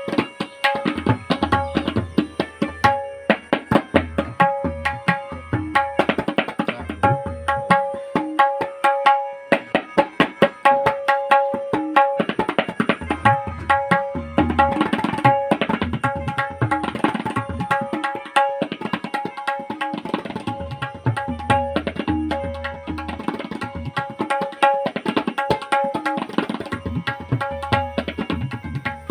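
Tabla played solo in fast, dense strokes, with deep bass-drum strokes coming and going and a steady ringing pitch held beneath the strokes.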